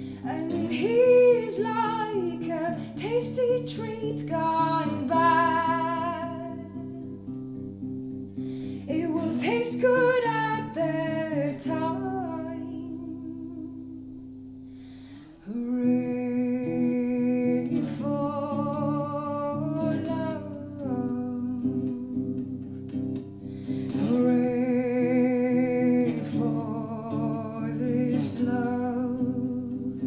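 A woman singing her own song while playing an electric guitar, sung phrases over held chords. About halfway through, a chord is left ringing and fading before the next is struck and the singing resumes.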